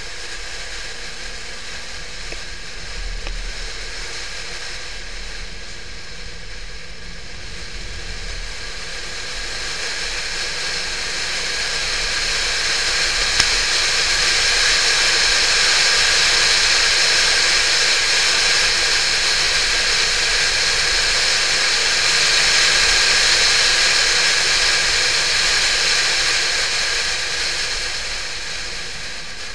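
Wind rush and road noise on a camera mounted on the front bonnet of a Porsche 911 (996) driven at speed: a steady hissing rush that builds about a third of the way in, stays strong through the middle and eases near the end.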